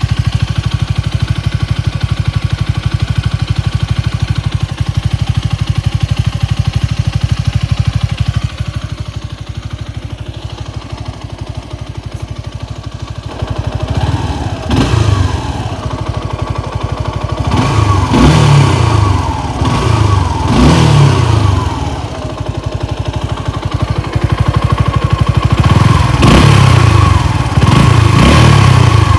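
Suzuki Gixxer SF250's single-cylinder engine through a Yoshimura GP-MAGNUM105 Cyclone full exhaust, running steadily at first. From about halfway it is revved in several rising and falling blips, with a longer high rev near the end.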